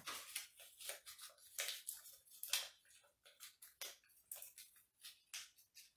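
A small folded slip of paper being unfolded by hand: faint, irregular crinkling and rustling, several crackles a second.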